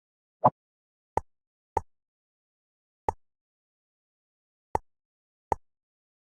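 Six short, sharp taps at uneven intervals, with silence between them.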